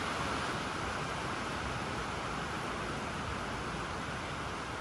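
Steady, even rushing noise with no distinct hoofbeats or other separate sounds.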